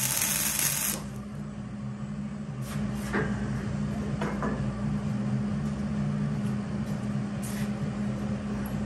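A welding arc crackling and hissing for about the first second, then cutting off. After that, a few light metal clanks as steel bar stock is handled, over a steady low hum.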